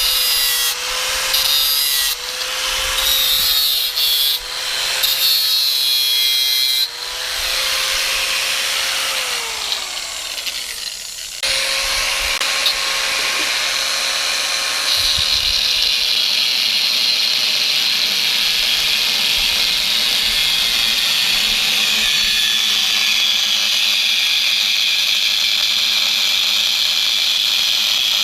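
A power grinder grinding metal: a steady motor whine under short grinding passes, then the tool spins down with a falling whine, starts again, and settles into one long continuous grind.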